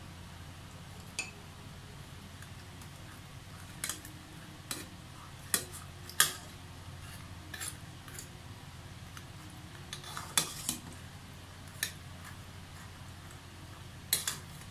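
A ladle stirring crab soup in an aluminium pot, knocking and scraping against the pot's sides and the crab shells in irregular clinks, about a dozen in all.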